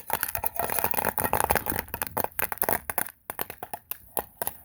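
Popcorn kernels popping in a popcorn maker over a fire: a dense, rapid run of pops that thins out to scattered single pops after about three seconds.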